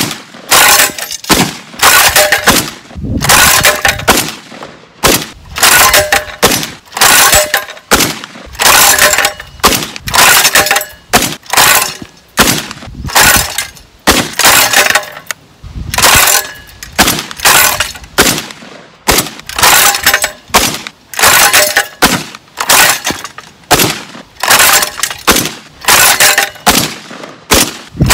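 Tokarev TBP 12-gauge semi-automatic bullpup shotgun fired shot after shot, roughly one loud report a second, as it cycles and ejects each shell.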